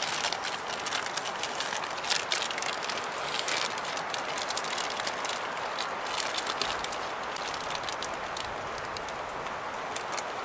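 Plastic zip-lock bag crinkling and crackling as bannock dough is squeezed and kneaded inside it, over a steady rushing hiss of wind.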